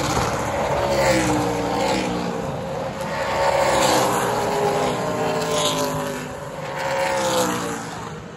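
Super Late Model race cars' V8 engines passing one after another, each engine note rising and then falling in pitch as the car goes by.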